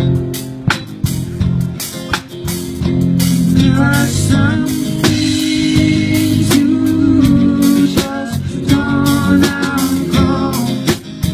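A live band playing a song: drum kit, acoustic guitar and bass guitar, with regular drum and cymbal hits.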